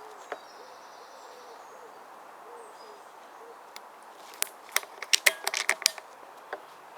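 A bird's low, soft, repeated cooing or hooting calls in the first few seconds, then a quick run of about a dozen sharp snaps and clicks over a second and a half, about four seconds in.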